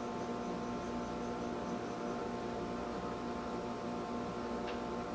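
A steady hum made of several fixed tones, the electrical hum of the room, with one faint click near the end.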